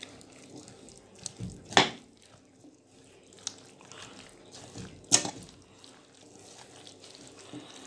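Diced potatoes and vegetables with mayonnaise being mixed by hand in a stainless steel pot: soft wet squelching, with two sharp knocks about two and five seconds in.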